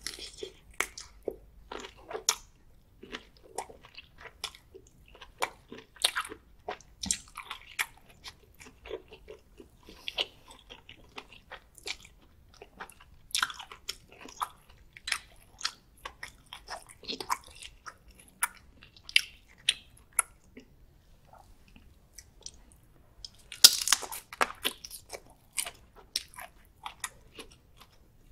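Close-miked wet chewing and biting of shell-on butter-garlic prawns: a steady run of irregular crunches and clicks, with a louder burst of crunching near the end.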